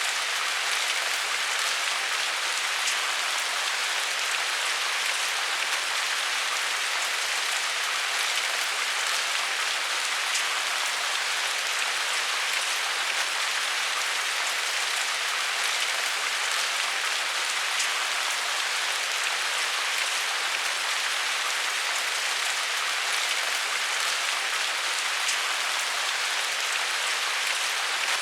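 Steady rain falling on a surface: an even hiss of countless drops with faint individual drop ticks, no thunder.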